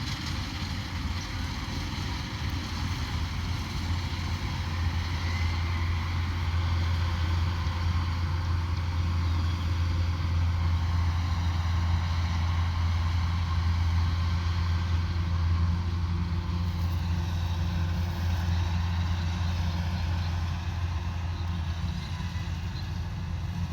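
Combine harvester's diesel engine running steadily with a strong low drone. It grows louder about four seconds in and eases a little near the end.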